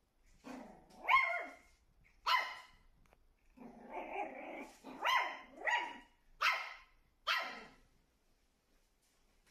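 Shih Tzu puppy barking, about six sharp yappy barks with softer yelps and a lower grumbling sound between them, stopping about eight seconds in. It is barking at its own reflection in a mirror, taking it for another dog.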